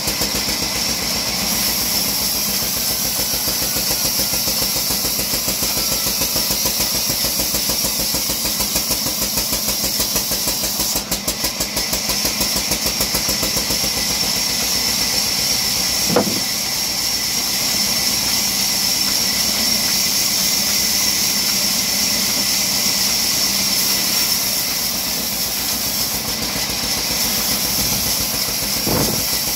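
A 48-inch vertical wood bandsaw running steadily while a log is fed through it lengthwise, with a dense low drone and a steady high whine. A single sharp knock comes about halfway through.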